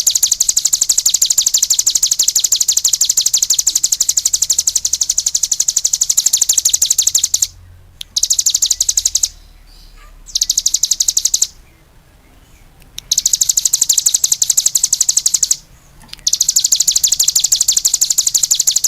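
Cigun songbird singing a loud, very rapid, evenly repeated high chattering trill, broken by a few short pauses and then resuming: the continuous, lively singing that bird keepers call gacor.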